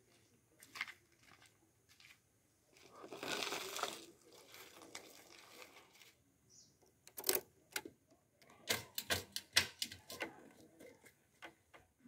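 Small keys jingling and clicking against a TVS motorcycle's ignition switch as the key is put in and turned, a quick run of sharp metallic clicks in the second half. A short rustling noise comes about three seconds in.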